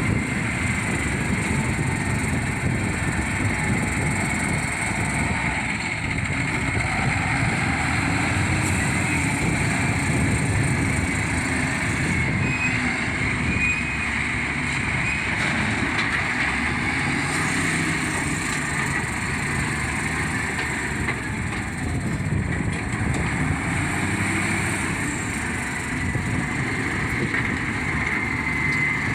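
Heavy earthmoving machinery running: a steady diesel engine rumble with a continuous higher whine, no distinct strikes or stops.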